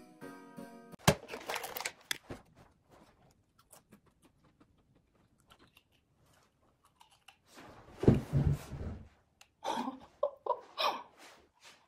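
Saddle-shaped potato chips being handled and crunched, with a louder crunching burst about eight seconds in, followed by a few short muffled vocal sounds.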